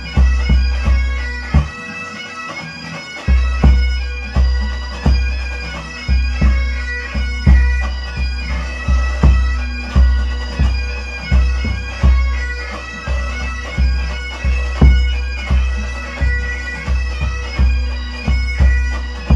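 Scottish pipe band bass drum struck with felt flourishing mallets, booming roughly twice a second under a bagpipe tune with a steady drone. The drum drops out for about a second and a half near the start, then picks up the beat again.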